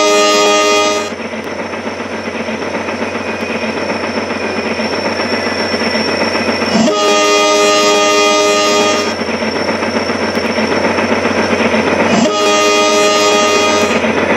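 Train horn sounding three long blasts, each about two seconds, roughly every six seconds, over a steady rattling train-running noise.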